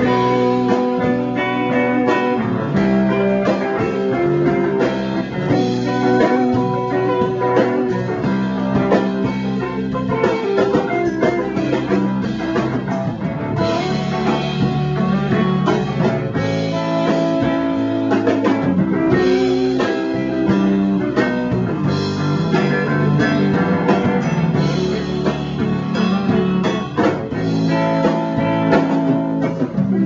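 Live band playing guitar-led blues-rock music, with drums keeping time.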